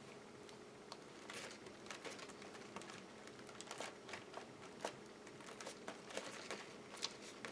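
Paper rustling and crinkling with small, irregular clicks and taps as paper cut-outs are handled.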